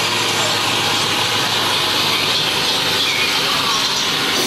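Loud, steady rushing rumble of a subway-themed dark ride's train car running through a dark tunnel, with a low hum underneath.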